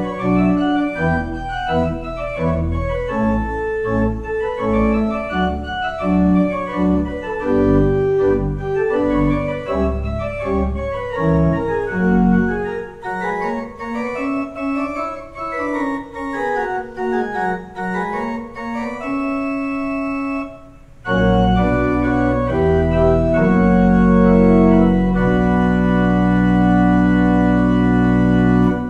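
Church organ playing a lively piece: quick notes over pedal bass, then a lighter passage without the bass. After a brief pause, loud sustained closing chords build to a held final chord that is released near the end.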